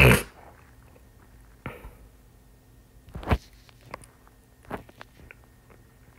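Quiet room tone with a low steady hum, broken by a few short soft clicks and knocks, the loudest about three seconds in.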